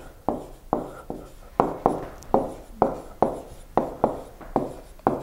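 Stylus tapping and scratching on a tablet screen during handwriting, a quick run of short, sharp taps about three a second as each letter is written.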